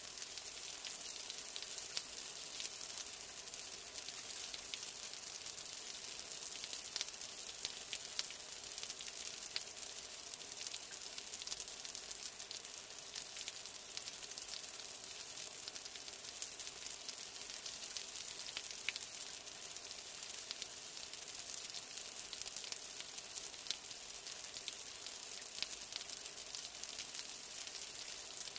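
Steady rain: a dense, even hiss of drops with many small sharp ticks of single drops landing.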